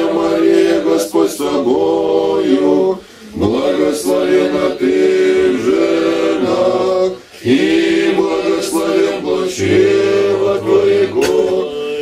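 A group of boys and young men singing an Orthodox prayer chant together a cappella, in long held phrases with short pauses for breath about three and seven seconds in.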